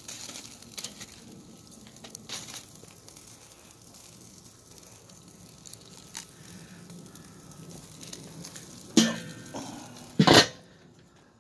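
Beef ribs sizzling over charcoal on a Weber kettle grill, with light clicks of tongs on the grate. About nine seconds in the steel lid scrapes with a ringing tone, then clanks down onto the kettle, and the sizzling goes quieter after that.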